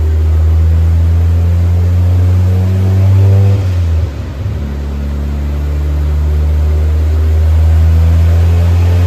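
Rotary-engined car running hard on a chassis dyno: a steady engine note that drops briefly about four seconds in, then picks up and holds again.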